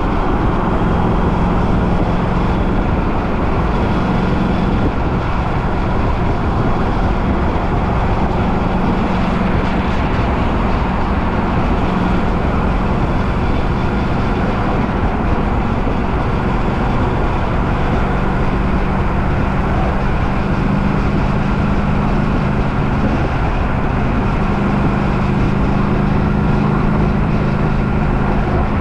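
A motor vehicle running steadily: a constant low engine hum over road noise. The hum shifts in pitch about two-thirds of the way through.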